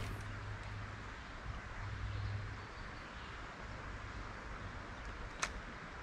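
Faint, steady outdoor hiss of the creek with some low handling rumble, broken by a sharp click right at the start and another about five and a half seconds in from handling the light spinning rod and reel.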